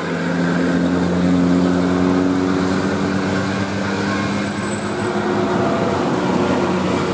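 Bus engine running loudly with a steady low drone.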